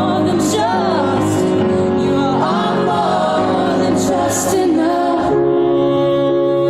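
Slow song with a voice singing over held, sustained chords, a few sung 's' sounds hissing through.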